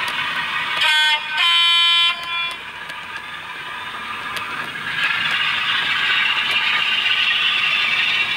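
Two-tone diesel horn from a model locomotive's DCC sound decoder, played through its small onboard speaker: a short higher note, then a longer lower note. It sounds over a steady running noise that gets louder about five seconds in.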